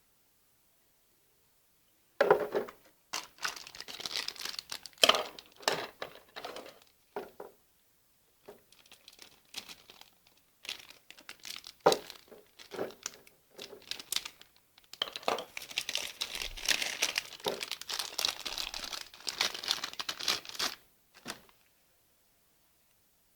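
Packaging crinkling and rustling as it is handled and unwrapped, in irregular bursts with sharp snaps and crackles. It starts about two seconds in, thins out in the middle and is busiest again near the end.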